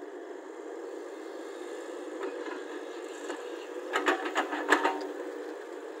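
Caterpillar excavator's diesel engine running steadily, with a quick cluster of sharp knocks about four seconds in as the bucket dumps soil and stones into the steel body of the dump truck.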